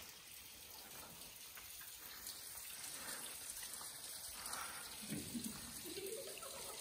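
Faint, steady patter of dripping and trickling water, with a few slightly louder drips.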